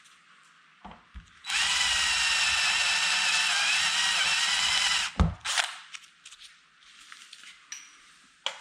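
Power drill drilling out a rivet head: it runs steadily with a whine for about three and a half seconds, then stops, followed at once by a sharp knock.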